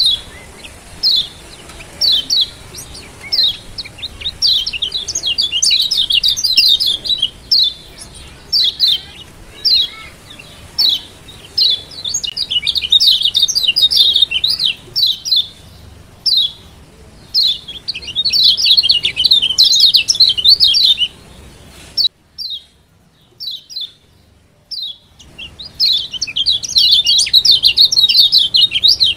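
Kecial kuning Lombok (a yellow white-eye, Zosterops) giving short, high 'ciak' chip calls about once a second, breaking four times into fast runs of rapid chattering calls: the 'ciak joss' call style. The calls drop away to a few faint ones for a few seconds about three quarters of the way through, then the chattering resumes.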